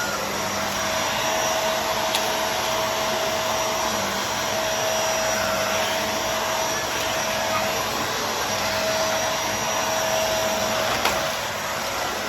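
Vacuum cleaner running steadily with its brushroll spinning: a continuous rush of airflow with a steady whine over it, and a couple of small ticks.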